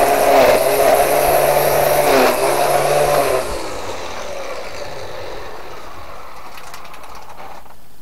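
Black & Decker 18 V cordless string trimmer's electric motor running at full speed with its nylon line spinning, dipping briefly about two seconds in. About three and a half seconds in it is released and the motor winds down. It is running on a Parkside 20 V battery through an adapter.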